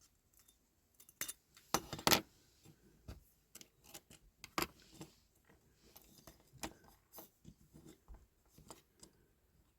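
Scattered small clicks and light metallic clinks of a diecast metal toy and small hand tools being handled, with a louder cluster about two seconds in.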